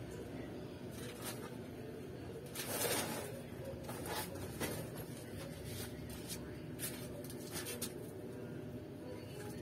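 Quiet workshop room noise with a steady low hum, a few faint light clicks and a brief rustle about three seconds in.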